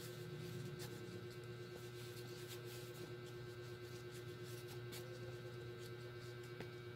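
Faint scratchy rustles and light clicks of flour-coated raw chicken wings being handled and dredged, over a steady low electrical hum.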